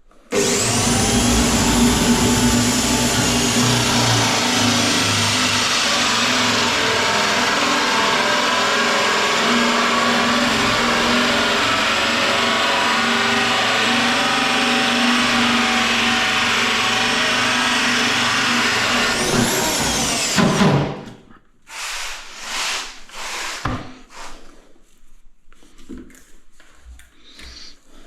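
Electric drill boring a pipe hole, running steadily under load for about twenty seconds. Its whine rises as it spins up, and it winds down with a falling tone near the end. A few knocks and handling sounds follow.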